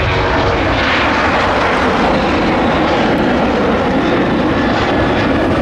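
Boeing 737's twin turbofan engines at takeoff thrust as the airliner lifts off and climbs out, a loud, steady jet roar.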